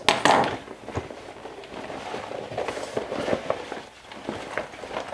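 A stiff, interfaced fabric bag being handled and turned: rustling and crinkling with irregular small knocks, loudest at the start.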